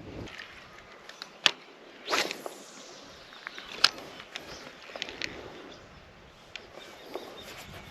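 Handling noises: two sharp clicks about two and a half seconds apart, a short swish between them, and lighter scattered ticks.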